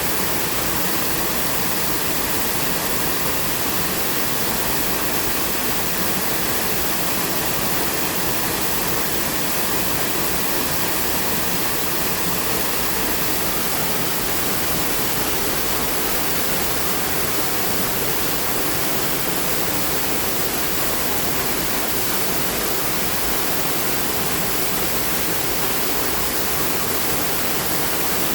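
Waterfall: a steady, unchanging rush of falling water, an even hiss strongest in the high end.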